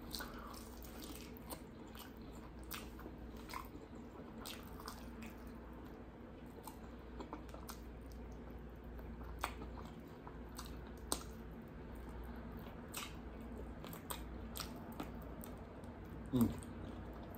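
Close-up eating of sesame chicken wings: chewing and biting, with scattered small wet clicks and smacks as meat is pulled off the bone. A steady low hum runs underneath.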